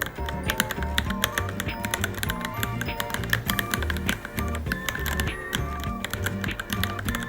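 Fast, continuous typing on a Varmilo Minilo mechanical keyboard, the keystrokes clicking many times a second, over background music with a steady beat.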